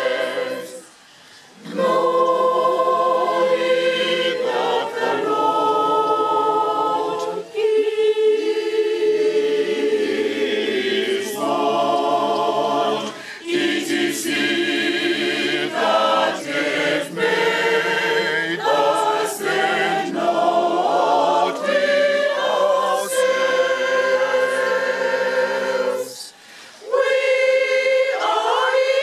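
A large church choir, mostly women's voices, singing a hymn together, with short breaks between phrases about a second in and near the end.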